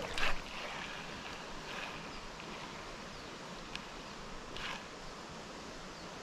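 Steady rush of river water, with a few short rustles and a single faint click.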